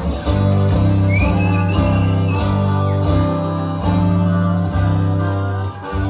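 Live acoustic band playing an instrumental passage: guitar chords with a steady bass line, no singing.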